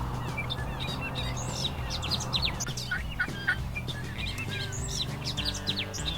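Many small birds chirping and singing at once, quick overlapping calls throughout, over background music with low held notes.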